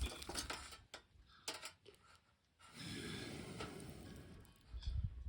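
Wood campfire crackling with sharp pops, then after a brief drop-out about two seconds in, a steady rushing hiss of the fire with a few low thumps near the end.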